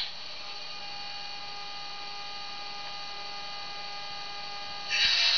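Sound decoder in a Roco HO-scale HLE 20 electric locomotive model playing a steady electric hum made of several even tones while the locomotive stands still. About five seconds in, a louder hissing sound comes in over the hum.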